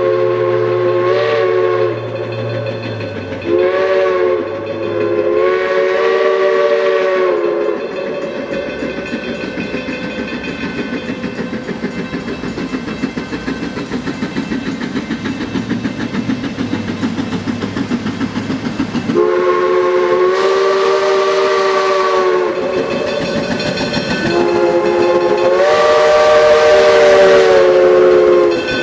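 A passing train's locomotive sounds its multi-note chime whistle, three blasts in the first seven seconds and then two long blasts, the last about four seconds. Between them the wheels click over the rail joints in a steady rhythm.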